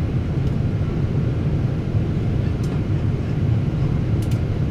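Steady cabin noise inside a Boeing 777-300 airliner in flight: an even low rumble of the engines and the airflow over the fuselage, with a few faint clicks.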